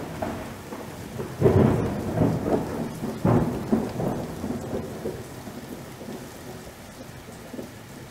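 Thunderstorm sound effect: rolling thunder rumbles over a steady hiss of rain, with the loudest claps about one and a half and three and a half seconds in, then fading away.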